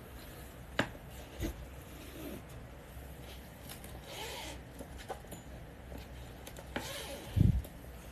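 Handling sounds: a few sharp clicks and some rubbing and rustling, then a dull thump about seven seconds in.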